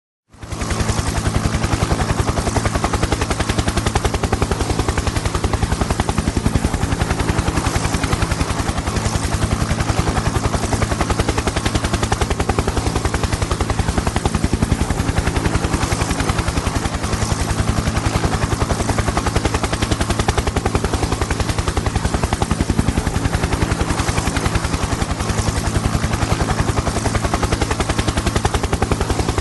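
Helicopter running close by: a rapid, steady chop of rotor blades over a low engine hum, rising in the first moment and then holding evenly.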